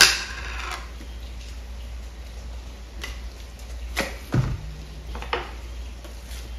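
Stainless steel mixing bowl knocked, clanking once with a short ring. Later a few knocks and a dull thud as a tub of ricotta is turned out into the bowl and a wooden spoon works it.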